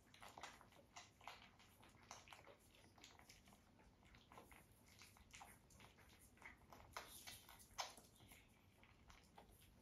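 Faint, irregular wet smacks and clicks of puppies suckling at their mother, one click near the end standing out louder.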